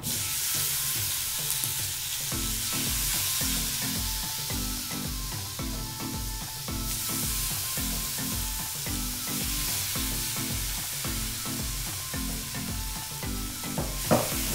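Zucchini slices coated in olive oil sizzling in a hot nonstick frying pan as more slices are laid in with tongs, with a single sharp click near the end.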